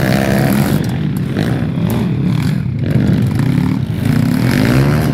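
Several pit bike engines revving as the small dirt bikes ride past, their pitch rising and falling with the throttle.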